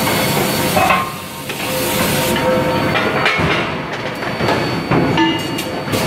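Forge-shop noise at a forging press: a loud steady hiss for the first second or two, then irregular metallic clanks and knocks with short ringing tones.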